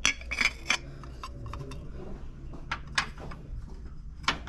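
Ceramic cat-shaped salt and pepper shaker being handled and set down, giving a handful of separate light clinks and knocks.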